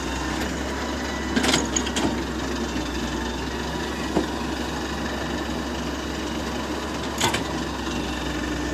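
Hitachi wheeled hydraulic excavator's diesel engine running steadily under load as it digs earth, with a few short knocks from the digging scattered through.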